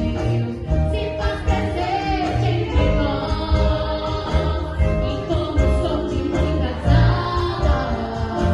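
Live gospel worship song: singing over a band with a heavy, pulsing bass and guitar.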